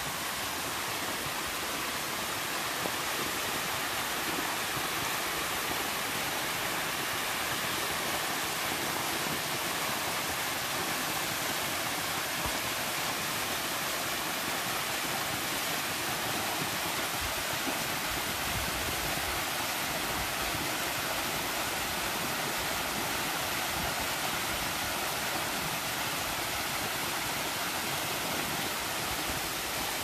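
Waterfall spilling down a mossy rock face and splashing at its base: a steady, close rush of falling water, even throughout, with a few brief low rumbles in the middle.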